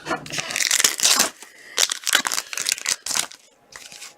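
2016-17 Fleer Showcase hockey trading cards being handled and shuffled by hand: a run of rustles, crinkles and sharp flicks, busiest in the first second and a half and again around two to three seconds in, quieter near the end.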